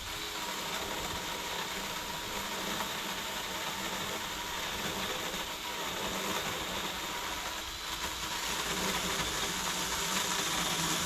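A small motorized saw running steadily as it cuts through an overhanging tree limb; the motor starts abruptly and holds an even pitch throughout.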